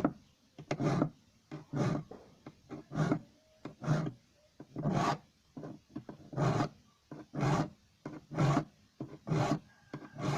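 Hand file rasping across the teeth of a wood hand saw to sharpen them, in even strokes about one a second, with small clicks between strokes.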